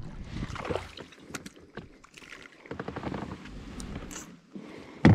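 Handling noise aboard a fishing kayak: scattered small clicks and knocks of gear over a low hiss, with one sharp knock near the end.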